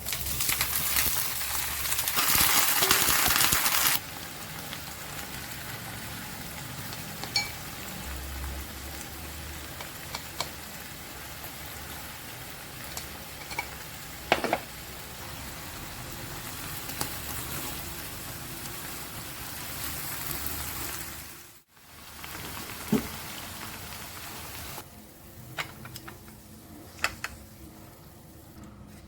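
Food frying in hot oil, a steady sizzle that is loudest in the first few seconds, then settles, with a few light clicks over it.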